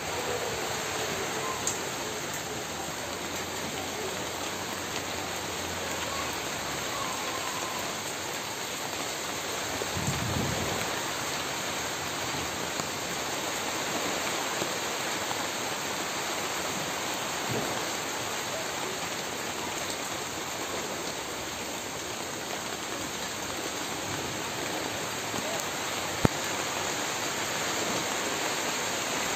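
Steady rushing hiss like rain or running water, with a few faint clicks and a brief low rumble about ten seconds in.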